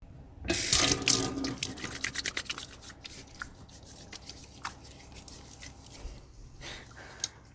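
Faucet water running into a small round stainless steel sink while hands are washed under it. It comes on with a loud rush about half a second in, then settles lower, broken by many small splashes and drips.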